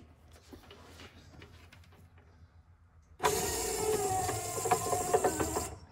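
1964–66 Ford Thunderbird rear quarter-window regulator driven by its electric window motor. The motor starts about three seconds in and runs steadily for about two and a half seconds before stopping. A crackle runs through the motor sound, and it comes from the regulator's counterbalance spring, which is exceptionally noisy.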